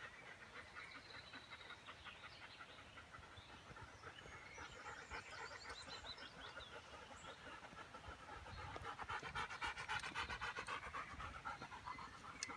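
Alaskan Malamute panting in a quick, even rhythm, faint at first and louder for a few seconds later on.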